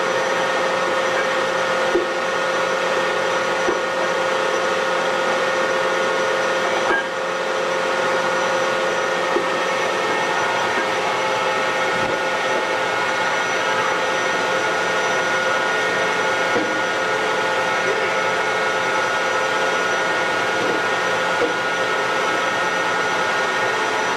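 Steady drone of running machinery, a constant hiss with several fixed whining tones, with a few faint knocks.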